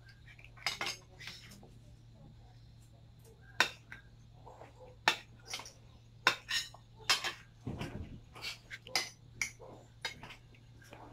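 Metal forks and spoons clinking and scraping against ceramic bowls and plates as small children eat, in irregular sharp clinks every half second to a second or so. A duller thump sounds about eight seconds in.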